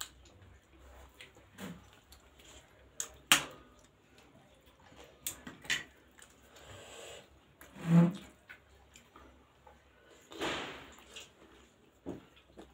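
Eating sounds of two people having steamed pork momos: soft chewing and mouth noises, with scattered sharp clicks, the loudest a little over three seconds in, and a short low hum about eight seconds in.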